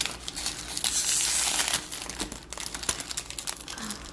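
Crinkling and rustling of a trading card pack's wrapper and cards being handled, loudest in the first two seconds and then lighter rustles.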